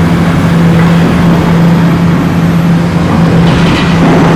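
Komatsu PC450 long-reach demolition excavator's diesel engine and hydraulics running loud and steady under load, with a constant low hum over the rumble.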